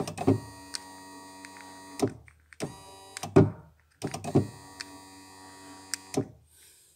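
Skoda Octavia Tour power window motor and its gear drive running in three goes: about two seconds, then under a second, then about two seconds. There is a sharp clack at each start and stop. The motor works here when switched from the driver's door switch block.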